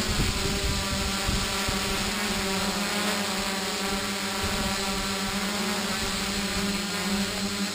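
Quadcopter's motors and propellers holding a steady hover in GPS position hold, giving an even hum that does not change in pitch.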